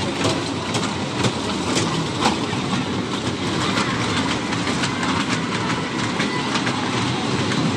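Small fairground kiddie train running on its steel track, the wheels rattling with frequent irregular clicks over a steady rumble.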